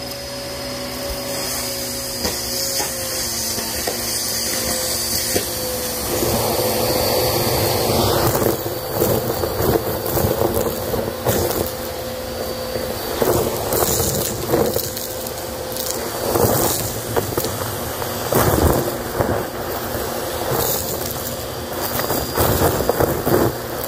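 Vacuum cleaner running with a steady motor whine as its bare hose end sucks up a crunchy mix of glitter, sequins and confetti from carpet. From about eight seconds in, the pieces rattle and crackle up the hose in quick irregular bursts.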